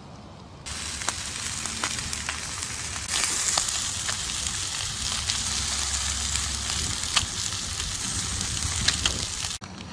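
Food frying in hot oil in a pan: a steady sizzle with scattered pops and crackles. It starts suddenly less than a second in, grows louder about three seconds in, and cuts off abruptly just before the end.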